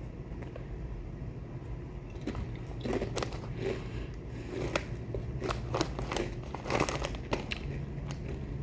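Crunching of a spicy avocado-seasoned tortilla chip being bitten and chewed: a run of irregular sharp crunches, thickest through the middle and latter part.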